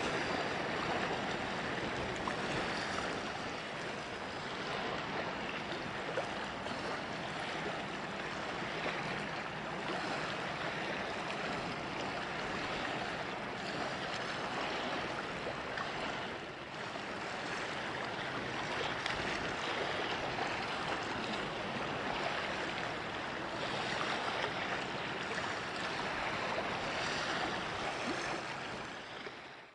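Steady rushing wash of wind and water at the shoreline, with no distinct engine tone, fading out at the very end.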